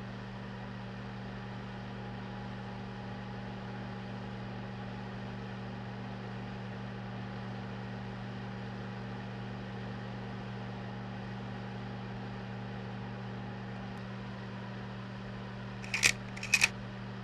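Steady electrical hum with hiss from a running projector. Near the end comes a quick run of three or four sharp mechanical clicks as the frame advances to the next slide.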